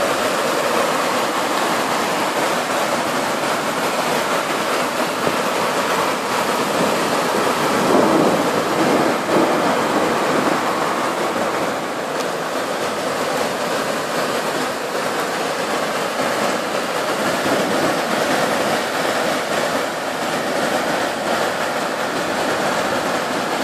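Torrential downpour: heavy rain pouring in a dense, steady hiss, swelling slightly about eight to ten seconds in.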